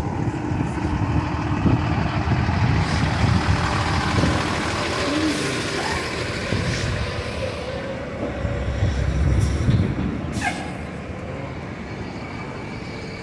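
Trolley bus and a truck passing close by on the street, engines running in a dense steady rumble. A brief squeal falls in pitch about ten seconds in.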